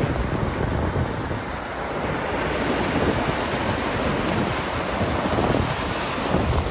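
Stream water pouring over a low concrete fish barrier and churning in white water below, a steady rushing.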